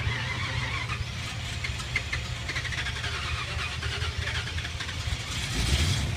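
Vehicle engine idling with a steady low rumble that grows louder about five and a half seconds in.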